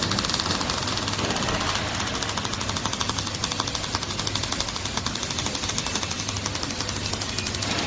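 Welding arc from a robotic welding torch, a steady rapid crackle of about ten pulses a second.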